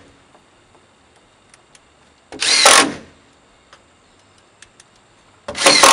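Cordless impact driver driving 1-inch drywall screws into a plywood board, in two short bursts under a second long, about two seconds in and again near the end, with faint clicks between.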